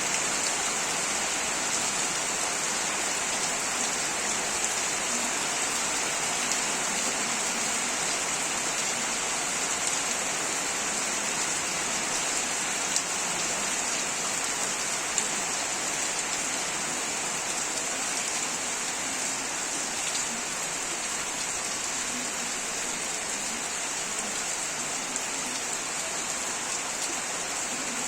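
Steady rain falling and pattering on a surface, an even hiss with a few sharper drops standing out.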